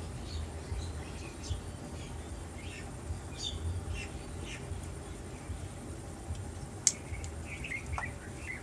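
Faint, scattered bird chirps over a low rumble, with one sharp click about seven seconds in.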